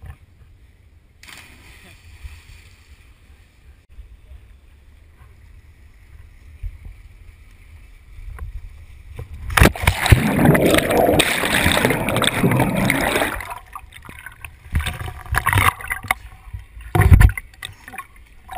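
A jump from a bridge into a river, heard from a camera carried by the jumper: a faint steady hiss, then a sudden plunge into the water about halfway through, followed by about four seconds of loud underwater churning and bubbling. After that come shorter splashes and sloshing at the surface, with one sharp splash near the end.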